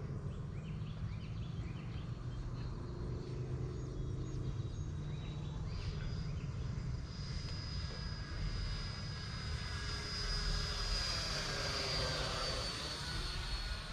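E-flite F-16 70 mm electric ducted-fan RC jet flying past overhead. Its high, steady whine grows louder over several seconds, then drops slightly in pitch as it passes, over a constant low rumble.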